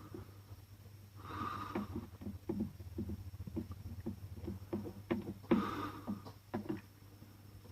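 Soldering iron tip tapping and scraping in small irregular clicks on a plastic bottle as melted cable-tie plastic is smoothed over a crack, under a steady low electrical hum. A few loud breaths or sniffs come every few seconds; the loudest is a little past halfway.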